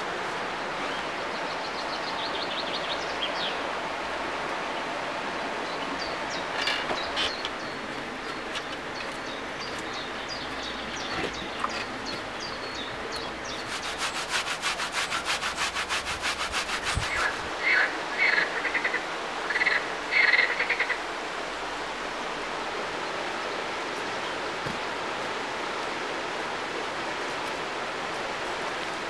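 Steady rush of a river flowing by, with birds chirping in short bursts. About halfway, a quick run of rasping scratches for about three seconds as a clump of moss is torn off a rock.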